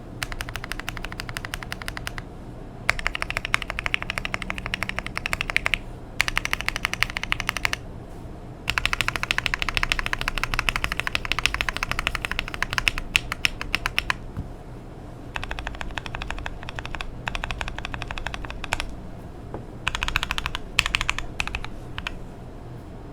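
Fast typing on a FinalKey V65 R2 mechanical keyboard with lubed Akko Jelly Pink linear switches and ABS Cherry-profile keycaps, on a polycarbonate plate with foam and tape mods. The typing comes in six quick runs of dense keystrokes separated by brief pauses.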